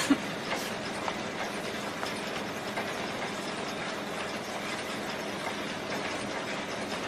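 Textile mill machinery running: a steady, dense mechanical clatter, with a sharp knock right at the start and a few fainter knocks in the first second.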